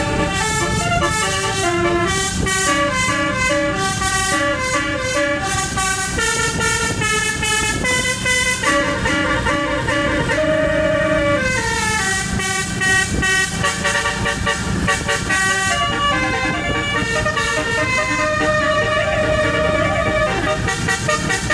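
Telolet basuri multi-tone bus horn playing a melody of stepped notes that change quickly up and down, over a low steady rumble.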